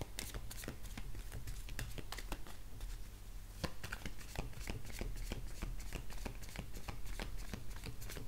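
A deck of oracle cards being shuffled by hand: a continuous, irregular run of quick card flicks and clicks, over a steady low hum.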